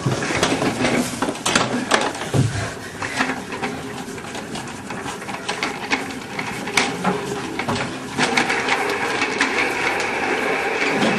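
Wheeled office chair rolling fast across the floor, its casters and frame rattling and clattering with many small knocks as the rider pushes it along. About eight seconds in, a steady higher-pitched sound joins the rattle.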